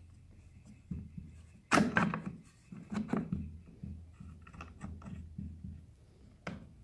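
A few wooden knocks and clicks as the table-saw sled's hold-down bar is pressed down against the workpiece, the strongest nearly two seconds in, over a faint steady hum.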